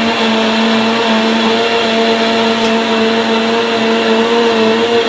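Countertop jug blender running at one steady speed, its motor giving a constant loud whine as it blends a milkshake of fruit, ice cream, almond milk and ice cubes.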